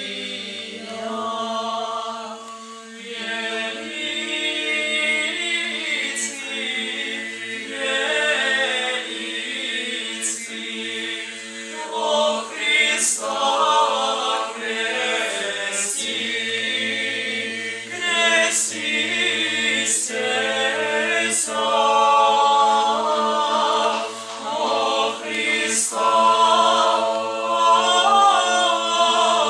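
Small mixed choir of men's and women's voices singing a cappella in parts. A steady low note is held under the moving upper voices, and the sung words' hissing consonants stand out now and then.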